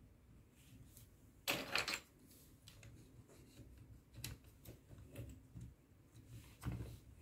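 Plastic Mathlink snap cubes being handled and pressed together: a short louder clatter about a second and a half in, then scattered light clicks.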